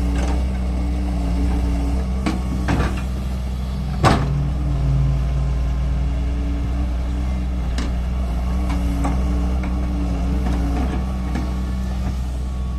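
Doosan wheeled excavator's diesel engine running steadily under hydraulic load as the bucket digs and lifts soil. Several sharp knocks from the bucket and linkage break through, the loudest about four seconds in.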